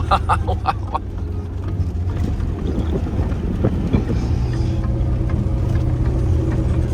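Lada car's engine running while driving on a rough road, with a few knocks and rattles near the start. The steady engine hum loosens for a couple of seconds, then settles again about four seconds in.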